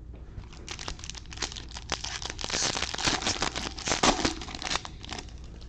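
Wrapper of a 2021 Bowman baseball hobby pack being torn open and crinkled by gloved hands: a crackling, rustling tear that is loudest in the middle and stops about five seconds in.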